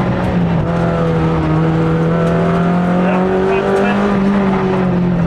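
Rally car engine running hard at high revs, heard from inside the cabin. The pitch holds fairly steady, climbs a little about four seconds in, then eases.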